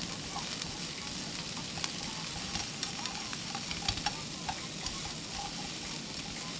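Pork and vegetables sizzling in a small frying pan over a camping gas stove, stirred with chopsticks that click against the pan now and then. The pan has almost no oil: it relies on fat from the pork, and little has come out.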